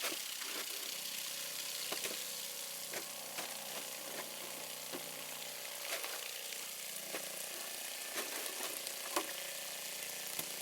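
Small electric water pump running with a faint steady hum, water hissing through it, with scattered small clicks.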